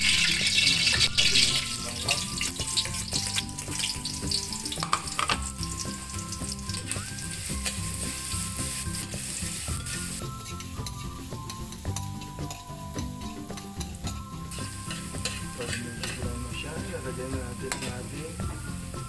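Onion sizzling as it sautés in hot cooking oil in a pan, loudest in the first couple of seconds, over quiet background music.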